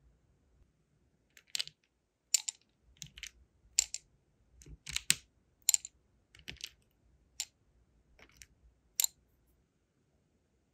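Sealing wax beads clicking as they are handled and dropped into a metal wax melting spoon: about a dozen sharp, irregular clicks.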